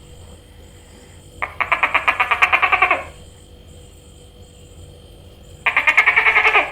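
Gecko calling: two bursts of rapid, evenly spaced chirping pulses, about ten a second. The first runs about a second and a half, starting about a second and a half in; a shorter one starts near the end.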